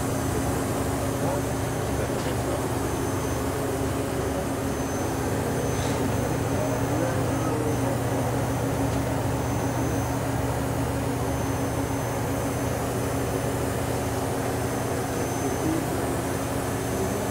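Hurco BMC-20 CNC vertical machining center running through its program cycle, with a steady mechanical hum and a couple of low tones.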